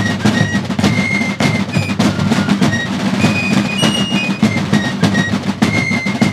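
Fife and drum corps playing: fifes carry a shrill melody of short high notes over rope-tension field drums beating a dense rolling rhythm.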